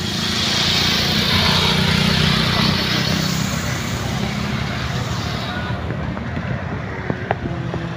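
Motor vehicles passing close on a street, a motorcycle and a small van among them: engine and tyre noise that swells over the first few seconds and dies away after about five, followed by a few light clicks.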